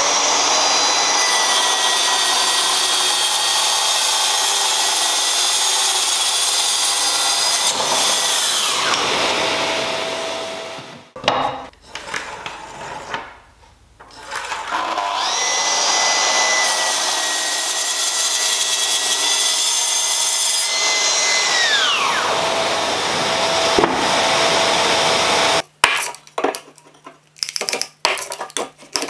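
Festool plunge-cut track saw cutting along its guide rail through a solid oak board. Its motor runs at a steady whine and winds down after about nine seconds. A few seconds later it starts again, runs for about seven seconds and winds down. A series of knocks and clatters follows near the end.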